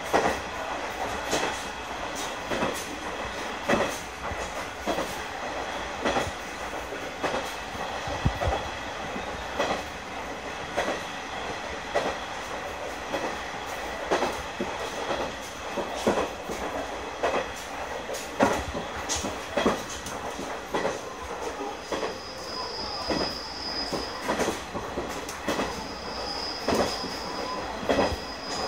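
KiHa 100 diesel railcar running at speed, heard from inside the cab: a steady rumble with frequent sharp clicks and knocks from the wheels on the track. A high wheel squeal sounds twice near the end.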